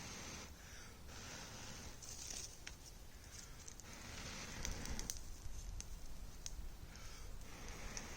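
Sleeping bag and tarp rustling and crinkling as a person shifts and climbs out, coming in patches of a second or so with scattered small clicks.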